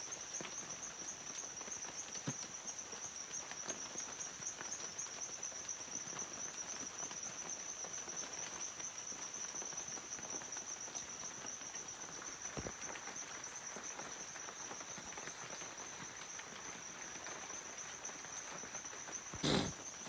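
A steady chorus of rainforest insects, one continuous high-pitched shrill that holds at the same pitch throughout. A brief thump comes near the end.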